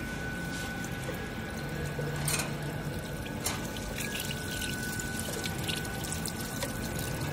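Water running steadily from a chain link fence machine's water pump feed, the flow just turned down. A steady thin whine and a low hum run under it, with a couple of light clicks.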